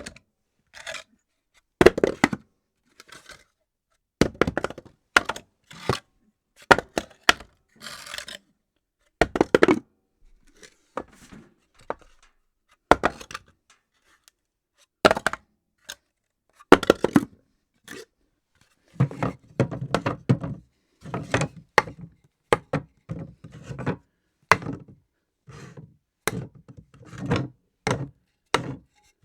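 Objects dropped on a floor, one after another: a long series of separate thuds and clatters with short gaps between them, coming thicker and faster in the last third.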